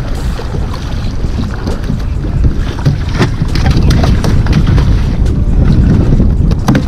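Wind buffeting the microphone over choppy sea water, with a snoek splashing at the surface as it is hauled up to an inflatable boat. Two sharp knocks come, one about three seconds in and one near the end.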